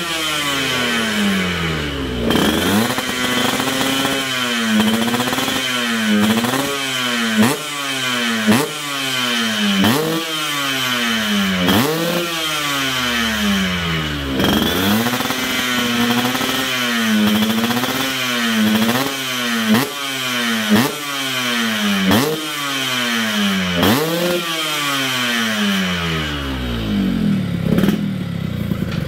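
Yamaha RX-King's 135 cc two-stroke single-cylinder engine being revved over and over through a silenced exhaust: each throttle blip climbs quickly and falls back, about once a second, and it settles toward idle near the end.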